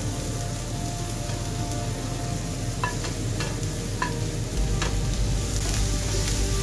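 Grated beetroot sizzling as it is tipped into a hot frying pan of fried onions and stirred with a wooden spatula. About three to five seconds in, four sharp clicks as the spatula scrapes and taps against the plate and pan.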